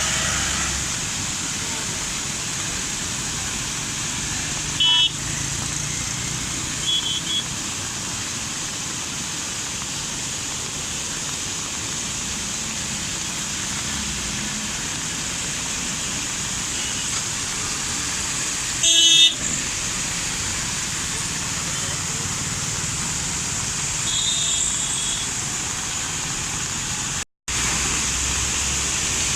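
Vehicle horns honking in short blasts four times, the loudest about two-thirds of the way in, over a steady rushing noise.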